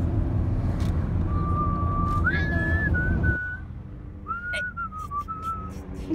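Someone whistling a few held notes that step up and down in pitch, over the engine and road rumble of a Volkswagen T4 van heard inside the cabin. The rumble drops away about three and a half seconds in, leaving the whistling clearer.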